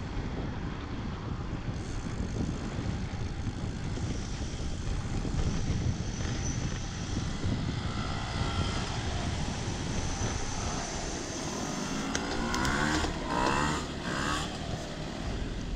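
Steady wind rush on the microphone of a road bike in motion. An engine-driven vehicle passes, its pitch bending as it goes by, loudest about thirteen seconds in.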